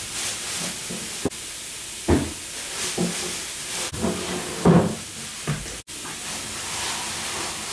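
Steady background hiss with a few soft thumps and bumps, a baby moving about on a mattress and bedding.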